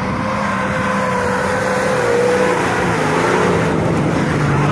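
Off-road 4x4's engine running hard at high revs under load, pitch held fairly steady with a slight dip about three seconds in, as it claws up a loose sandy slope.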